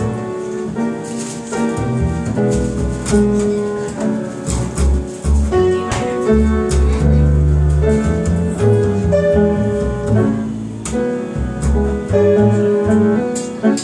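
Upright piano and double bass playing a jazz instrumental passage together, with piano chords and melody over low bass notes and no vocals.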